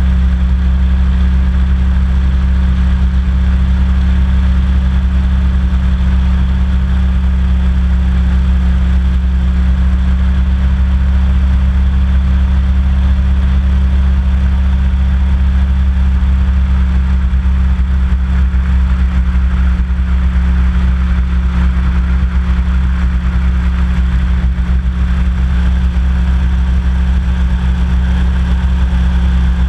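Hovercraft under way, its engine and fans running steadily: a loud, deep, unchanging drone.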